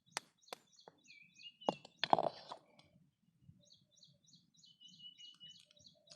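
Eggs tapped and cracked against the rim of a bowl: a few sharp knocks in the first two seconds, the loudest just after two seconds in. A bird chirps in a fast repeated run behind them.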